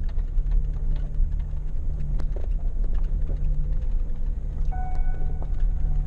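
Jeep driving along a rough gravel track, heard from inside the cab: a steady low engine drone and tyre rumble, with scattered rattles and knocks from the bumpy road.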